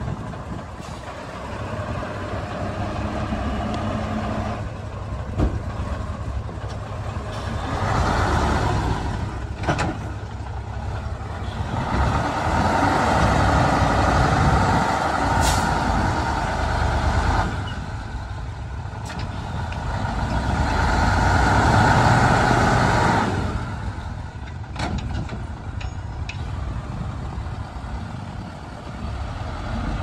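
Heavy diesel earthmoving machinery at work: the engine runs steadily and revs up under load in three long surges, with a few sharp clanks in between.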